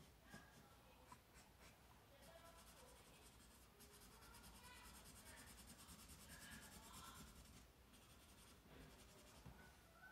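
Felt-tip marker colouring in on sketchbook paper: faint, rapid back-and-forth scribbling strokes, with a few small ticks of the marker tip in the first second or so.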